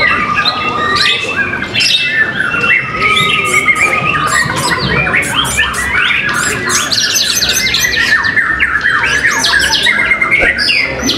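Several white-rumped shamas singing over one another at once in a dense, unbroken jumble of rapid whistles, trills and sharp chirps: caged birds in competition song.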